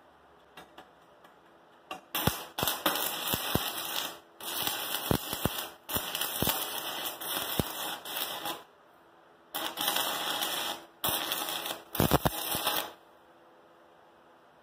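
Stick-welding arc from a 36-volt battery arc welder burning a 7018 rod, crackling with sharp pops in three runs: a long one of about six seconds starting two seconds in, then two shorter ones with brief breaks between. The arc is running a little too hot and the rod is blowing.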